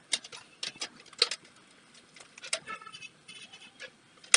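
Scattered sharp plastic clicks and taps as a pedestal fan's plastic grill rim and its locking clip are handled and pressed together, the loudest click near the end.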